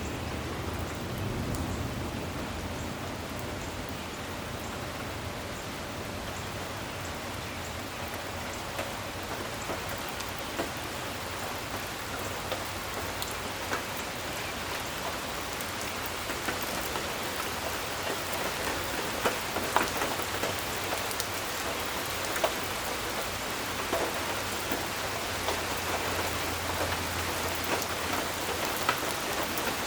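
Steady heavy rain falling on surfaces, with scattered sharper drop hits. The low rumble of thunder dies away in the first couple of seconds.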